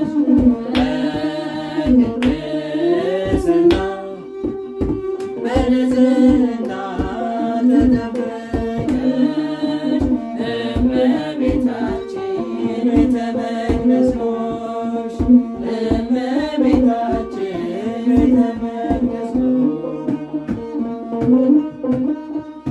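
Ethiopian Orthodox mezmur music: kebero hand drums beat a steady rhythm under a sustained, gliding melodic line.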